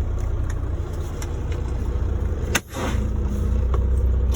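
Volvo VNL semi-truck's diesel engine running with a steady low rumble while the truck pulls away. About two-thirds of the way through comes one sharp pop or thud with a short hiss after it.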